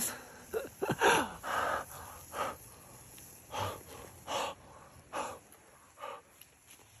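Mouth sounds of someone eating meat: irregular short, soft puffs of chewing and breathing, about one a second.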